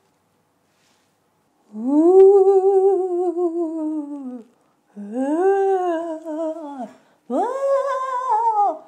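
Spooky ghost-wail sound effect: three long, wavering 'oooo' tones, each rising and then sliding down in pitch. They begin about two seconds in.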